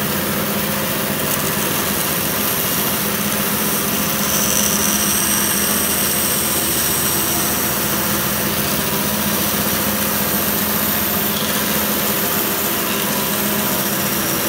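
A 20-inch bandsaw running, its wide blade cutting straight down into a block of wood. A steady motor hum sits under the hiss of the blade in the wood, and the high hiss grows stronger for a few seconds near the middle.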